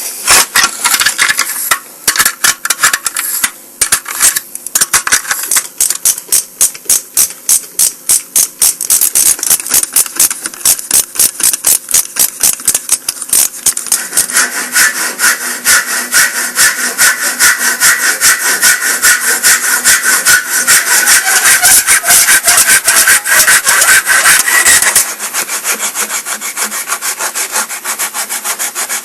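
Handsaw cutting through wood in quick, steady back-and-forth strokes. About halfway through the strokes grow louder and more even, with a ringing note from the blade.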